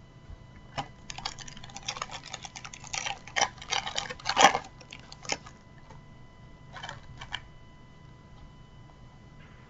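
Crinkling and tearing of a trading-card packet's foil wrapper being opened: a few seconds of dense crackles with the loudest rip about four seconds in, then a couple of short rustles near seven seconds.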